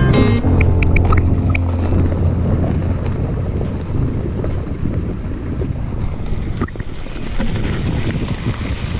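Wind buffeting the camera microphone and the rumble of a mountain bike rolling down a dirt forest trail, with one sharp knock about two-thirds of the way through. A held low music note fades out over the first couple of seconds.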